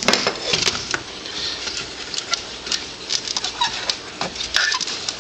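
Irregular clicks, taps and rattles of small plastic and metal parts being handled as an old alarm clock is pulled apart.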